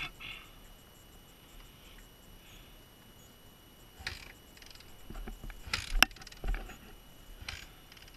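Scattered scuffs, scrapes and clicks of boots and riding gear on rocky dirt, with a sharp click about six seconds in. No engine is running.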